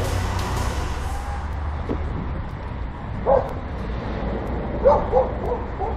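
A dog barking: one bark about three seconds in, then two quick barks near the end, over a steady low rumble.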